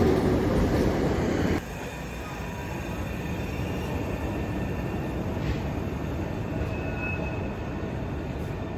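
Train wheels rolling on the rails. A loud rumble drops abruptly about a second and a half in to a steadier, quieter rolling noise, with faint high wheel squeal.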